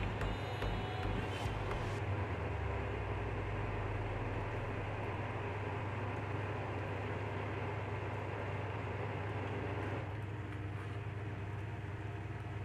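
A steady low hum with a broad hiss over it; the higher part of the hiss drops away about ten seconds in.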